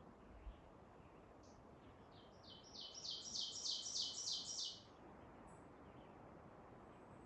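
A songbird sings one song of about ten quick, high repeated notes, growing louder over two and a half seconds, with faint chirps around it.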